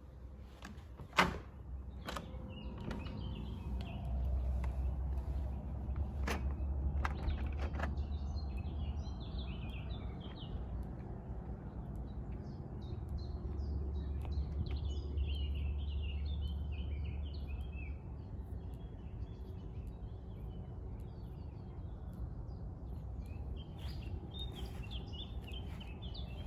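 A patio door's lever handle turning and its latch clicking sharply about a second in, with a few more clicks and knocks as the door opens. Birds then chirp and twitter throughout, over a low rumble.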